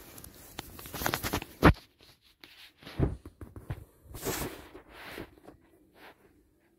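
A metal spatula scraping and knocking against a metal baking pan and a china plate as squares of chocolate cake are lifted out, with one sharp clink a little under two seconds in and a few softer scrapes and taps after.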